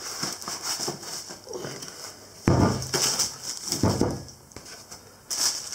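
Cardboard packaging and plastic wrap rustling and scraping as a quick-change lathe tool post is slid out of its carton sleeve. There are two louder scrapes, about two and a half and four seconds in.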